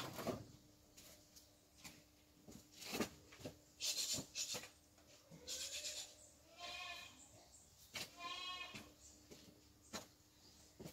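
Goats bleating faintly: two quavering bleats a little past halfway, with a shorter call just before them. Scattered faint knocks and clicks are also heard.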